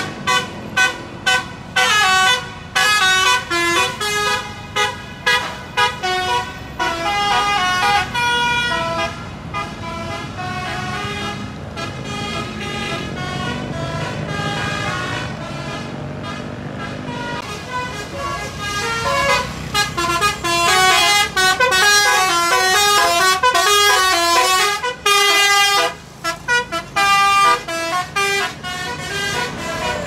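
Bus telolet horns, Basuri multi-tone horns, playing quick tunes of rapidly changing notes: short separate toots at first and again near the end, a long fast run of notes in the middle, over the low running of the bus engines.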